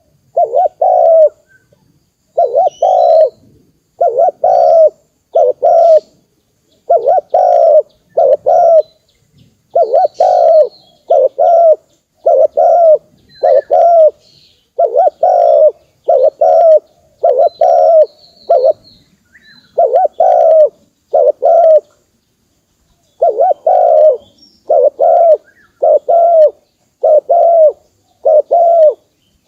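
Spotted dove cooing: loud low coos come in close pairs and threes, one after another, with one longer pause late on. Faint high chirps of small birds sound behind it.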